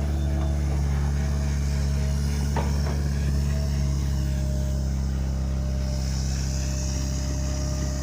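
Heavy diesel excavator engine running steadily under load, with a single metallic knock about two and a half seconds in.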